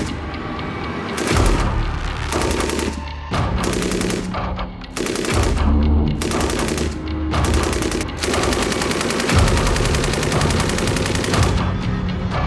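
SAR 762 MT 7.62×51mm machine gun firing several short bursts of rapid automatic fire, then one long burst of about three seconds near the end. Background music runs underneath.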